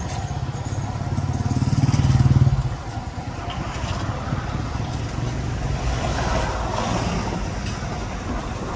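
Hot oil sizzling in a wok as a clump of rice-grain batter deep-fries in a wire strainer, against street traffic. A motorcycle engine close by builds to the loudest sound about two seconds in, then drops away suddenly.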